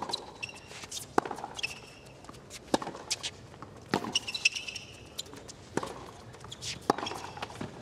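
Tennis rally on a hard court: the ball is struck by the rackets about every one to one and a half seconds, with ball bounces and short high squeaks of shoes on the court between the shots.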